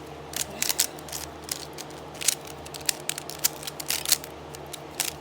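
Rubik's brand 3x3 speed cube being turned by hand: quick, irregular clicks and clacks of the layers snapping into place, several a second.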